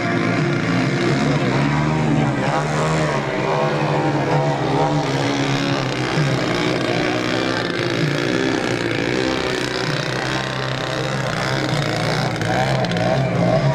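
Engine and propeller of a 50%-scale Yak 54 RC aerobatic plane, its pitch rising and falling again and again with throttle changes during 3D manoeuvres.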